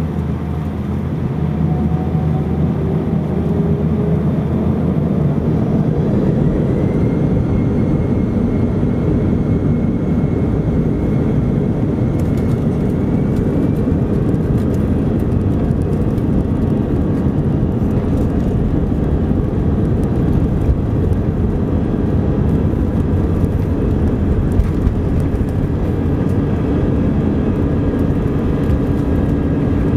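Airbus A319 jet engines heard from inside the cabin, spooling up to takeoff power: a whine rises in pitch and the noise grows over the first several seconds. It then holds steady with a heavy rumble as the airliner accelerates down the runway on its takeoff roll.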